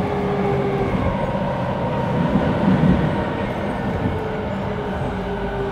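Interior running noise of an E217 series electric train's motor car at speed: a steady rumble of wheels on rails, with a faint level whine from the traction motors.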